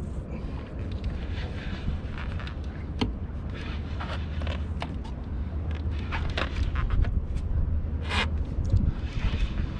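Boat engine running with a steady low hum, overlaid by scattered clicks and scrapes, and a short hiss about eight seconds in.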